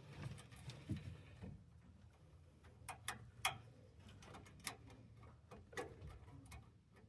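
Faint, scattered clicks and ticks of thermostat wires being fitted and fastened at the thermostat's terminal block, a click or two a second.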